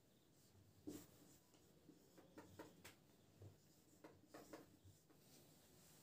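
Faint felt-tip marker strokes on a whiteboard as words are written: a scatter of short scratches and taps, clustered about a second in and again between two and five seconds in.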